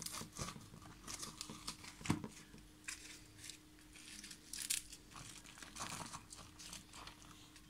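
Hands tearing naan bread and handling the food on the platter close to the microphone: a run of short, irregular rustles and tears, with one sharper, louder knock about two seconds in.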